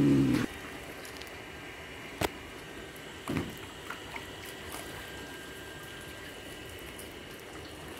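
Steady trickling and running water, with a sharp click a little over two seconds in and a dull knock about a second later. A short voice sound comes at the very start.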